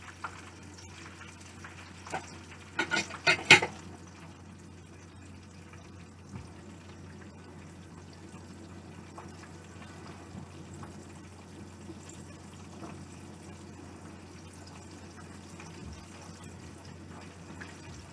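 Cube steak frying in oil in a nonstick skillet, a steady low sizzle, with a brief loud cluster of sharp sounds about three seconds in.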